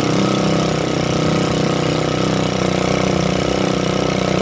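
Small motorcycle engine running at a steady pace while riding, an even, unbroken drone.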